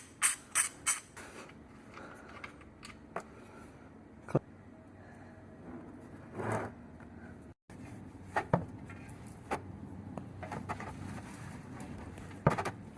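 Hand tools and parts being handled during a car oil change: scattered light clicks and knocks, with a quick run of sharp ticks at the start and a short rustle in the middle.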